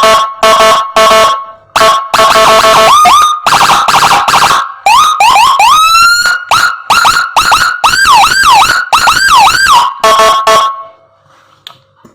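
Electronic siren module played through a TOA ZH610S horn speaker at full volume. It runs a string of short, choppy horn-tone blasts, then rising whoops, then a fast up-and-down wail about twice a second, and cuts off about eleven seconds in.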